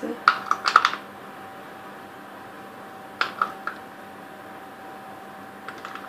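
Quick clusters of small sharp clicks and taps as pieces of chocolate are handled and set on top of cake batter in a mould: a burst of about six in the first second, three more around the middle, and a couple of faint ones near the end.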